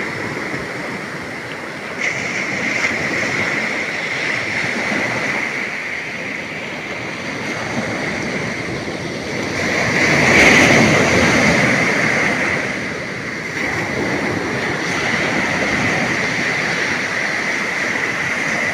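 Sea surf washing onto a beach, a continuous rush of water with one wave breaking louder about ten seconds in.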